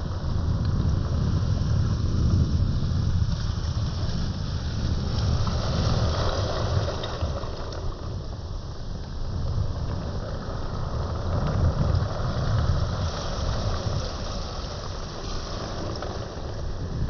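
Wind buffeting the microphone over the wash of sea waves on a beach, the surf swelling twice and easing again.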